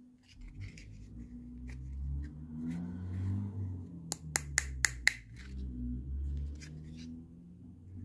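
Fingers clicking and tapping on a small hard-plastic toy TV, with a quick run of about six sharp clicks a little past the middle, over a low hum.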